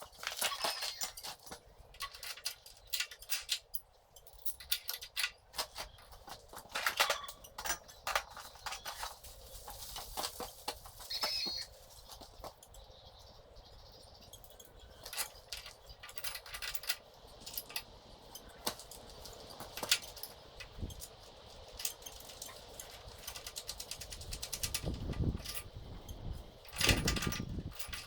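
Irregular clicks, knocks and clatter of hard objects being handled, with quiet stretches between and a few louder thuds near the end.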